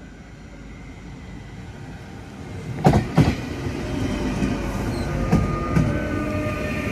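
DSB passenger train approaching and running past the platform, growing steadily louder. Two sharp wheel clacks over rail joints come about three seconds in, with a few lighter ones after, and a whining tone sounds as the cars go by.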